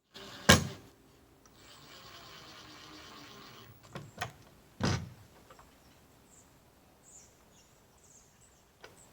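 Wooden shed doors being worked: a loud knock about half a second in, two light clicks near four seconds, and a heavier thump just after, with a stretch of faint hiss between.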